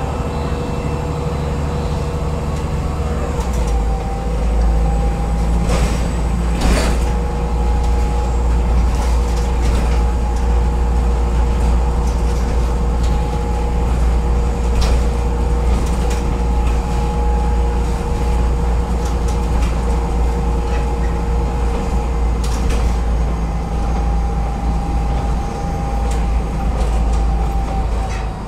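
LAZ A183D1 diesel city bus driving: a steady low engine rumble with a constant whine, the rumble growing heavier about three and a half seconds in. Scattered sharp clicks and knocks, the strongest about six and a half seconds in.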